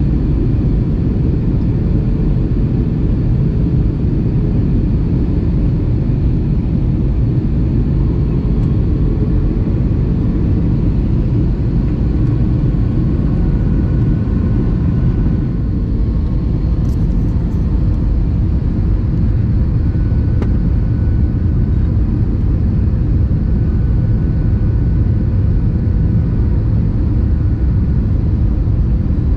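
Steady low roar of an airliner cabin on its descent, the engines and the airflow over the fuselage heard from a window seat. Faint steady whining tones sit over the roar.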